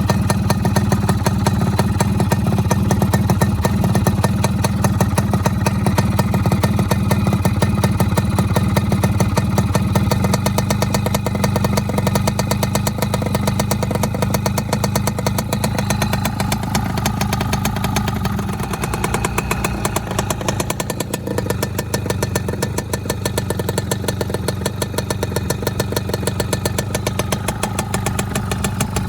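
Modified Yamaha F1ZR two-stroke single-cylinder engine idling with a rough, rapid 'snoring' (ngorok) exhaust note, the racing-tuned idle being shown off. It runs steadily and gets a little quieter over the second half.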